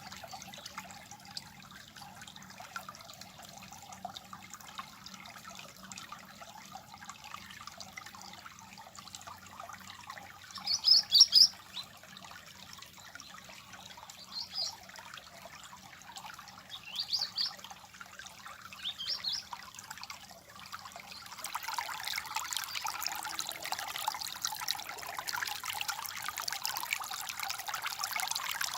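Stream water trickling and babbling, with a bird giving four short, high chirps in the middle, the first the loudest. About three-quarters of the way through, the flowing water becomes clearly louder.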